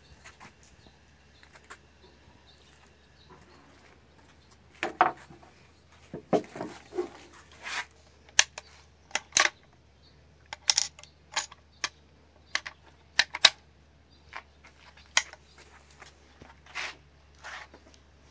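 A series of sharp metallic clicks and clacks at uneven intervals, some in quick pairs: the trapdoor rifle's action being handled, its breechblock opened and closed and its hammer worked.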